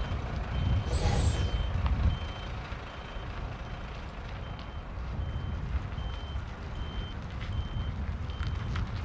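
Articulated truck reversing: its reversing alarm beeps steadily, a little faster than once a second, over the low running of the diesel engine. About a second in, a short hiss of air, like the air brakes, rises above it.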